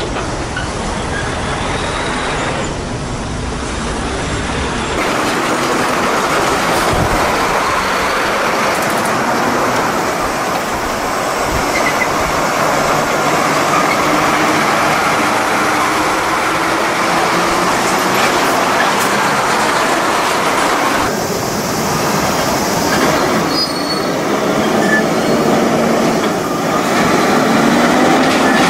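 Heavy diesel semi-trucks hauling container trailers driving past close by: engines running with tyre and road noise. The sound changes abruptly about five seconds in and again about twenty-one seconds in.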